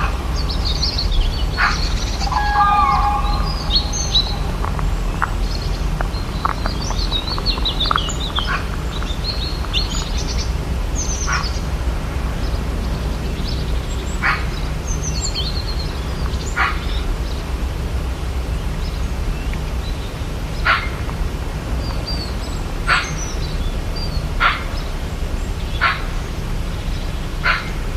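Rainforest ambience: many birds chirping and trilling, with short sharp calls repeating every two or three seconds later on, over a steady low rumble.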